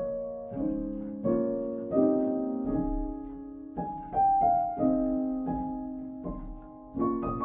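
Calm instrumental background music: slow chords of struck notes, each starting sharply and left to fade before the next.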